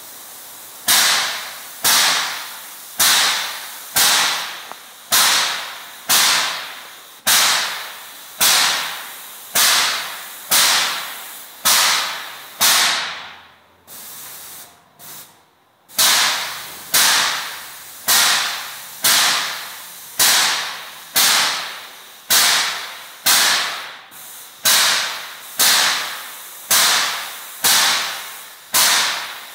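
Tornado Tiger 52:40 airless paint sprayer pump cycling while the gun sprays epoxy floor paint: a sharp hiss about once a second that fades after each stroke. The strokes stop for a couple of seconds midway, then resume.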